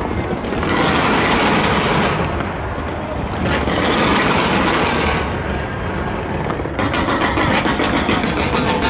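Fireworks going off in a dense barrage: a continuous mass of bangs and crackles that swells twice, then turns into rapid crackling about seven seconds in.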